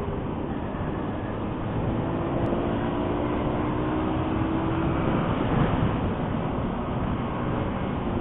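Motorcycle engine running at road speed with wind and road noise, its engine note drifting slightly, getting a little louder around five to six seconds in.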